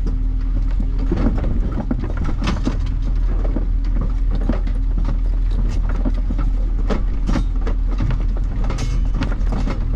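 Van engine and tyre noise heard from inside the cab on a rough dirt road, a steady low hum with a held tone, broken by frequent clicks and rattles of loose things in the van jolting over the bumps.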